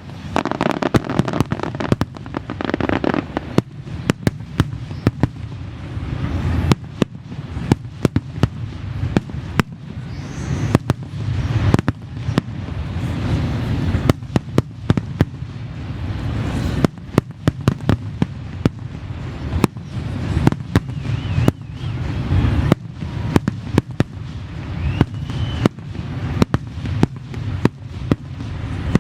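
Fireworks display: a dense, continuous barrage of aerial shell bursts and crackling, several sharp bangs a second over a low rumbling echo.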